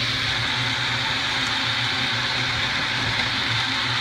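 Chicken mince sizzling steadily in a frying pan, with a steady low hum underneath.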